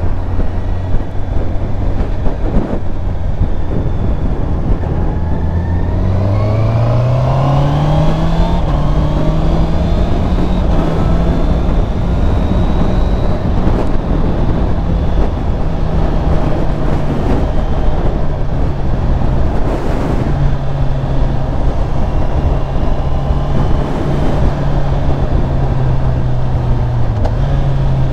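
Honda CBR650R's inline-four engine heard from the rider's seat. It pulls steadily, then accelerates with a smooth rising pitch about six seconds in and settles into a steady cruise. Heavy wind rush on the microphone runs underneath.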